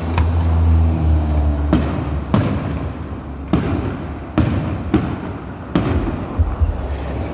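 Distant aerial fireworks shells bursting: about six sharp bangs, irregularly spaced over a few seconds, over a steady low rumble.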